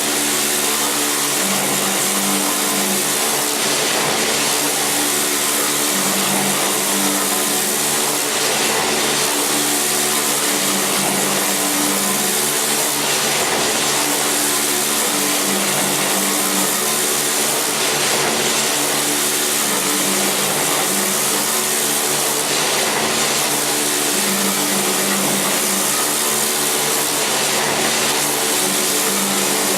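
Grate-cleaning machine running steadily: a motor hum under a loud hiss, with the hiss swelling about every four and a half seconds in a regular cycle.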